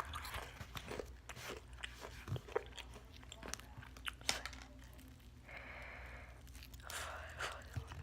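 Close-miked crunching and chewing of crispy fried chicken: irregular crackly crunches of the coating as it is bitten and chewed.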